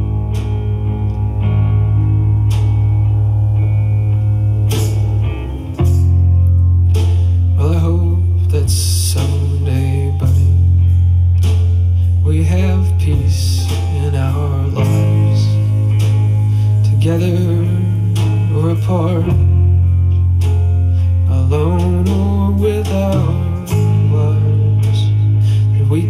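A recorded rock-blues song with guitar, a heavy sustained bass line and singing that comes in about six seconds in, played back through a Frazier Super Texan horn speaker with its original alnico drivers. It is picked up by a camera's built-in microphone.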